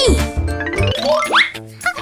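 Cheerful children's background music with a cartoon sound effect: a whistle-like tone gliding upward, rising steeply about halfway through, over twinkly chime notes.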